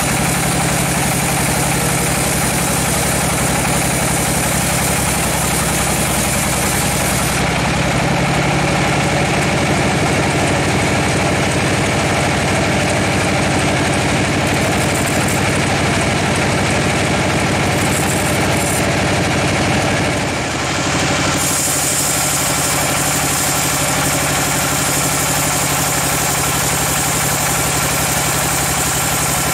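A large log bandsaw mill runs steadily while sawing a slab off a giant teak log. The machine drone carries several steady tones. Its pitch and brightness shift about seven seconds in and again about twenty-one seconds in.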